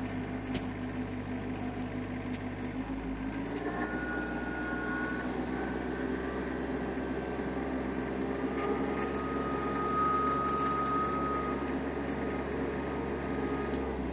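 Tractor engine running steadily, its pitch stepping up about three and a half seconds in and again near the middle as the throttle is raised.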